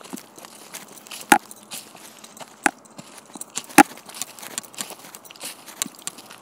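Footsteps crunching over dry fallen leaves and gravel on a trail: a run of uneven crackly steps, with three sharper, louder snaps in the first four seconds.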